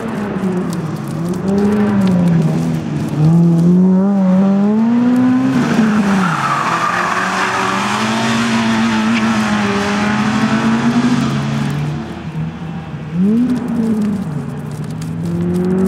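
Fiat Cinquecento race car's small four-cylinder engine, driven hard: the revs climb and drop again and again through gear changes and corners. Tyres squeal for a few seconds in the middle.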